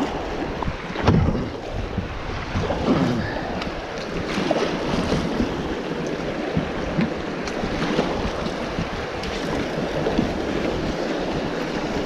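Fast river water rushing and splashing around a kayak running a riffle, with irregular splashes from the double-bladed paddle's strokes every second or so. Wind buffets the microphone.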